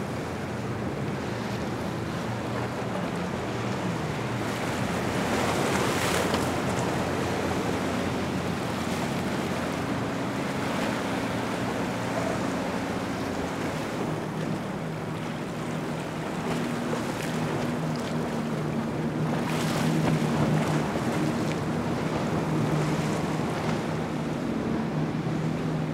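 Powerboat engines running at speed as boats pass, their hum sliding in pitch early on and steadier later, over the rush of water from the hulls and wakes and wind on the microphone. The water and engine sound swells twice, about six seconds in and again near twenty seconds.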